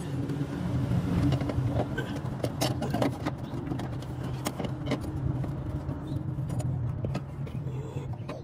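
A steady, low engine-like hum, with scattered knocks and clicks as the mower-deck belt and pulley are handled.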